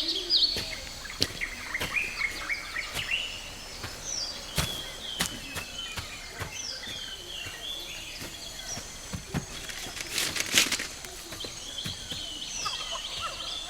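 Short, bird-like chirping calls that glide up and down, repeated throughout, with scattered sharp clicks. A louder, rasping burst comes about ten seconds in.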